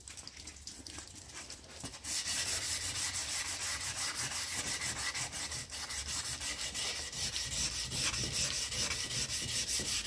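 Hand sanding the bare metal lip of a car wheel rim with a fine 400-grade abrasive: quick, rhythmic back-and-forth rubbing strokes that start about two seconds in.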